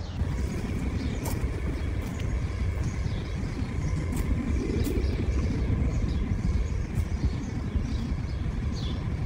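Steady low outdoor rumble, with faint short bird chirps scattered through it.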